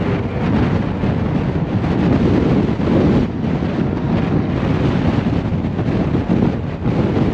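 Strong gusty wind buffeting the microphone, a loud low rumbling rush that swells and eases.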